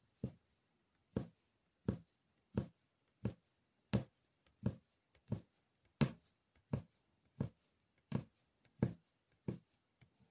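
A Russian punch needle stabbing in and out of fabric stretched tight on an embroidery frame, each stroke a short soft punch. Fourteen strokes at a steady pace of about three every two seconds.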